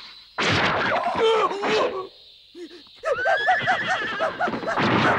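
A man's strained, anguished cry, then a rapid run of wavering cries as a man is cut down by a sword.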